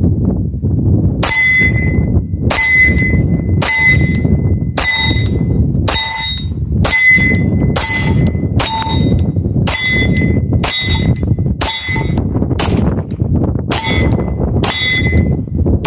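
SIG P226 Legion pistol fired about fifteen times at a steady pace of roughly one shot a second. Each shot is followed by the ringing clang of a steel plate target being hit. Wind rumbles on the microphone throughout.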